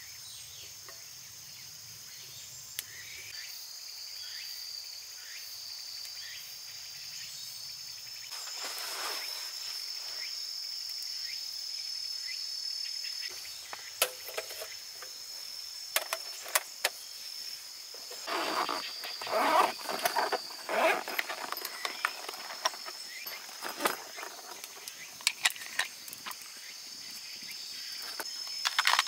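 Insects chirring in a steady high-pitched drone. Over the second half come sharp clicks and short bursts of rustling and handling noise.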